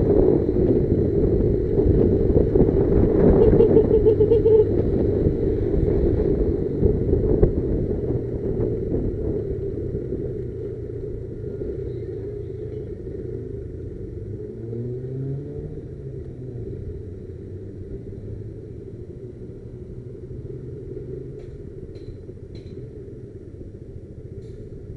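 Motorcycle engine running, loud at first and fading over the first ten seconds or so as it moves away, with a brief rise and fall in engine pitch about midway.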